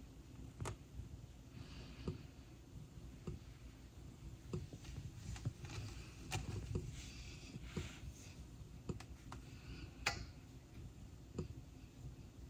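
Newborn kittens suckling at the mother cat: irregular soft clicks and smacks from their mouths at the teats, with a sharper click about ten seconds in.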